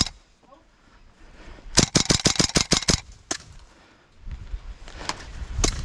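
Airsoft gun firing a rapid burst of about ten shots in just over a second, followed by a few single shots near the end.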